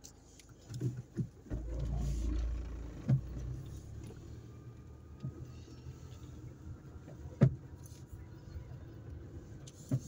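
Car driving slowly, heard from inside the cabin: a low engine and road rumble, louder for about a second and a half near the start, with several sharp knocks, the loudest about seven and a half seconds in.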